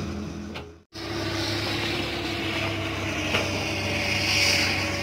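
Komatsu PC200 hydraulic excavator's diesel engine running steadily at close range, with a hiss that swells near the end. The sound cuts out for an instant about a second in.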